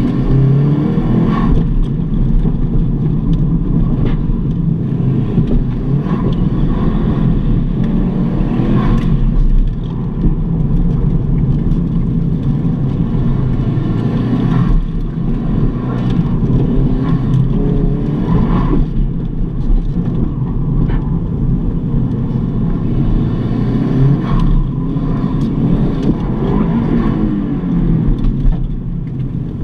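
A 1996 Subaru Impreza WRX STi's turbocharged flat-four engine, heard from inside the cabin, is driven hard. The revs rise and fall again and again.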